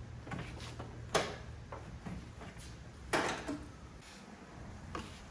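Two sharp clacks about two seconds apart, with a few lighter ticks between, as objects are handled and set down; a low steady hum underneath.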